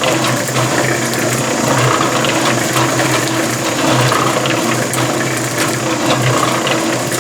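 Concrete mixer running with a steady motor hum and a gritty geared rattle as its drum turns sand.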